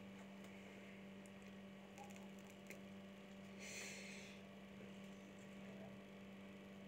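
Near silence with a steady low electrical mains hum, and a brief soft hiss about four seconds in.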